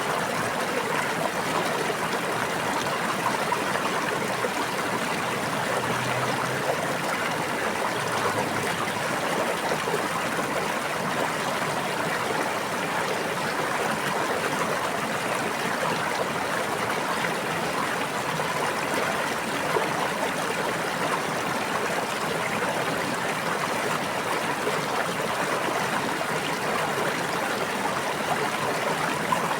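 A brook flowing and babbling, a steady rush of running water with no change in level.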